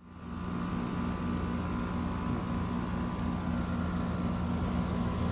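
Outdoor heat pump running in cool mode: a steady compressor hum under the rushing noise of the condenser fan, fading in over the first half second.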